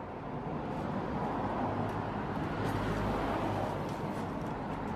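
A car passing by: engine and tyre noise that grows louder to a peak about three seconds in, then starts to fade.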